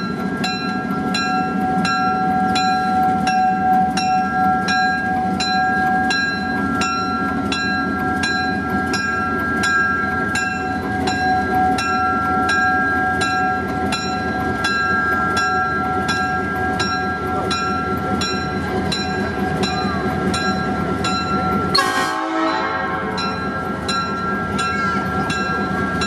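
Diesel switching locomotive running with its bell ringing steadily, about two strokes a second, over the engine's low rumble. A brief sudden noise breaks in about 22 seconds in.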